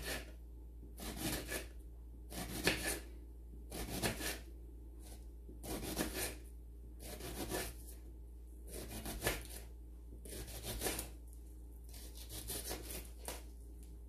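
Kitchen knife slicing through an onion onto a wooden cutting board: a short crisp crunch-and-scrape with each cut, in slow strokes about one every second and a half.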